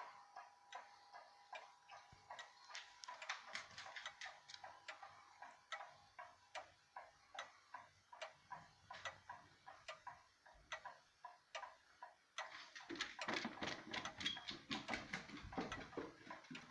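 1971 Howard Miller Barwick grandfather clock ticking steadily and evenly. The tone of a chime is dying away right at the start. From about three quarters of the way through, a louder, fuller noise joins the ticking.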